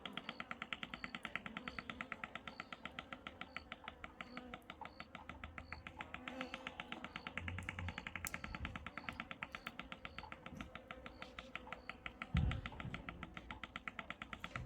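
Insects buzzing in a rapid, even pulse. A low thump about twelve seconds in.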